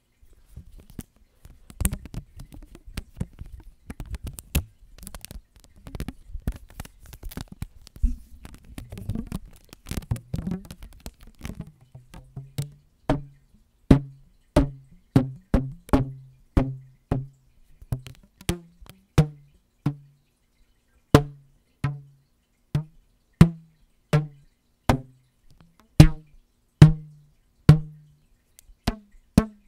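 Rubber bands stretched across a microphone, handled with small clicks and rubbing at first. From about twelve seconds in they are plucked like guitar strings: a run of short, low twangs, roughly one or two a second, at a couple of different pitches.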